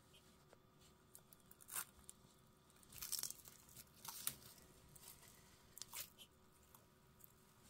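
Red-footed tortoise biting and tearing at leafy greens: about four short crunching rips, the loudest about three and four seconds in.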